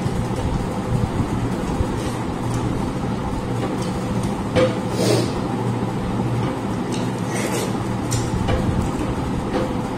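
Eating by hand from stainless steel plates: fingers scraping the plates, with chewing and lip smacking and a few sharper clicks around the middle, over a steady low hum.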